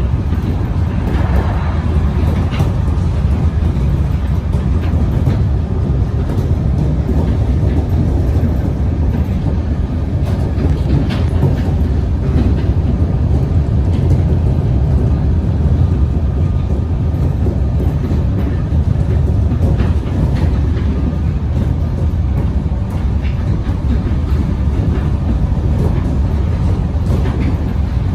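Melbourne suburban electric train in motion, a steady low rumble with faint clicks from the rails now and then.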